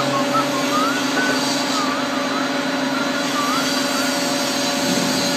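Hydraulic mixer running: its hydraulic motor turns the shaft in its bearings against a steady engine-like drone with a constant hum.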